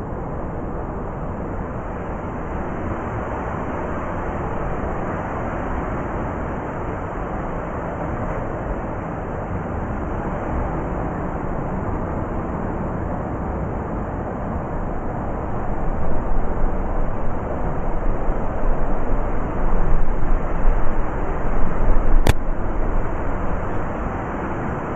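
Blizzard wind blowing steadily, rising into stronger gusts for several seconds in the second half, with one sharp click near the end.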